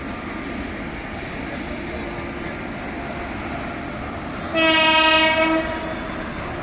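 Vande Bharat Express trainset sounding its horn: one loud, steady-pitched blast about a second long, over steady train running noise.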